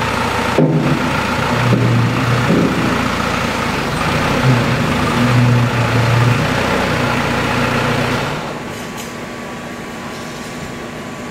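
Compact tractor engine running while the loader's freshly resealed bucket cylinder is worked, the low engine tone shifting in short spurts as the hydraulics take the load; this is the first run that purges air from the cylinder and checks it for leaks. The engine stops about eight seconds in, leaving a steady background hum.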